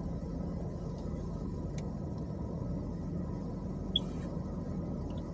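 Steady low road and engine rumble heard inside a moving car's cabin, with one faint click about four seconds in.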